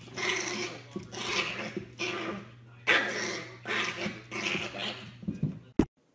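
Small fluffy white puppy giving a series of rough, growly yaps, about one a second, over a steady low hum. The sound cuts off abruptly near the end.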